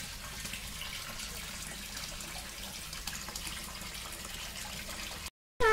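A stream of water pouring from a pipe into a fish tank, splashing steadily on the surface; the sound breaks off briefly near the end.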